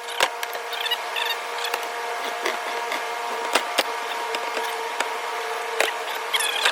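Irregular sharp metal clicks and creaks as an old rubber lower control arm bushing is forced out with a clamp-type press, cup and adapter, over a steady machine hum.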